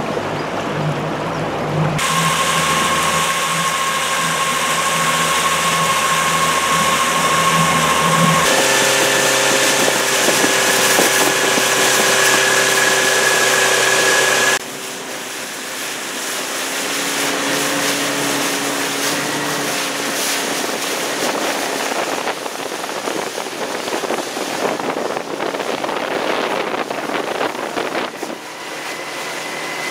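Boat outboard motor running at a steady speed with a whine, over a rush of water and wind. The pitch and level jump abruptly three times, about two seconds in, about eight seconds in and about halfway through.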